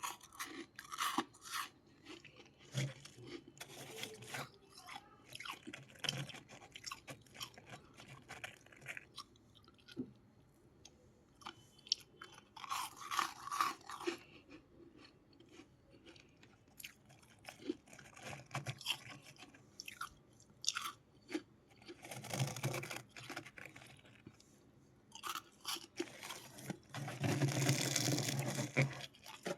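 Close-miked biting and chewing of freezer ice and frost: many sharp crunches, with a few longer, denser bursts of crunching, the longest near the end.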